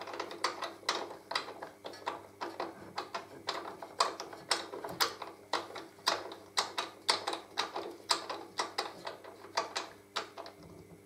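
Socket ratchet clicking as it spins a nut onto a motorcycle swingarm pivot shaft, about three uneven clicks a second, stopping shortly before the end. The nut is only being run on to hold the washer in place, not yet tightened.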